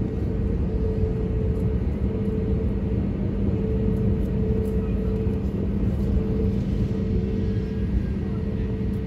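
Steady cabin noise inside an Airbus A321neo airliner: a low engine and airflow rumble with a constant low hum, unchanging throughout.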